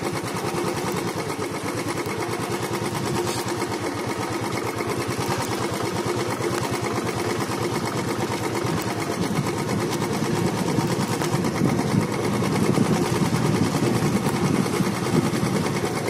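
Royal Enfield single-cylinder four-stroke engine running at low speed as the motorcycle rides along a dirt trail, a steady rapid exhaust beat that grows louder about ten seconds in.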